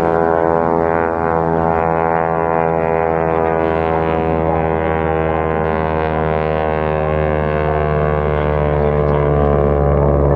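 North American T-6 Texan's Pratt & Whitney R-1340 Wasp radial engine and propeller running steadily as the plane flies past in a low pass and a banking turn, growing slightly louder near the end.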